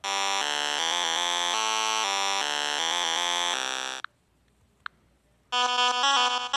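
8-bit chiptune melody of buzzy synthesized notes stepping up and down in pitch, cutting off suddenly about four seconds in. Two brief clicks follow in near silence, and another chiptune melody starts about a second before the end.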